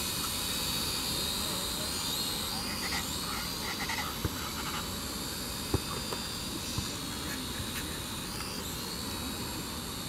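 Quadcopter drone in flight, its motors and propellers giving a steady high-pitched whine that wavers slightly as the rotor speeds change, with a few faint clicks in the middle.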